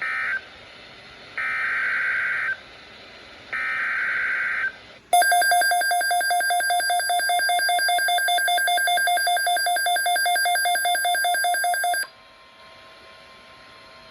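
Emergency Alert System SAME header: the tail of one screechy data-tone burst, then two more bursts of about a second each with short gaps between them. A loud, buzzy, pulsing attention tone follows for about seven seconds and cuts off abruptly. Together they mark the start of another relayed severe thunderstorm watch alert.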